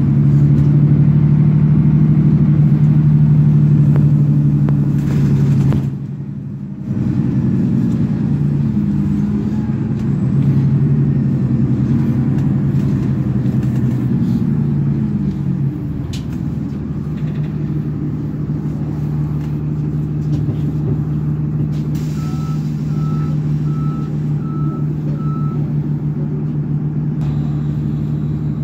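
Cabin sound of a 2009 Nova Bus LFS under way: its Cummins ISL diesel engine drones steadily, the pitch rising and falling with speed, and the sound dips briefly about six seconds in. About two-thirds of the way through, a run of about six short, evenly spaced high beeps sounds.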